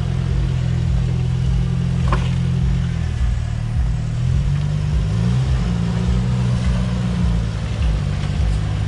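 Jeep Wrangler TJ engine running at low revs while crawling over rocks, its pitch dipping and rising a few times as the throttle is worked. A brief click about two seconds in.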